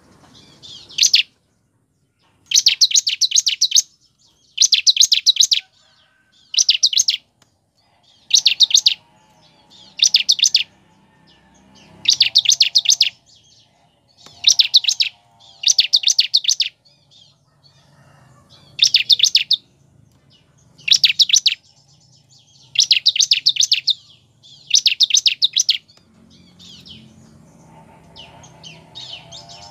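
Bar-winged prinia (ciblek) singing in loud bursts of rapid, high chirping notes, each burst about a second long and repeated roughly every two seconds, fading to softer chirping near the end.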